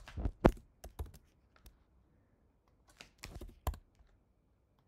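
Computer keyboard keys being typed in two short flurries of clicks, the loudest about half a second in.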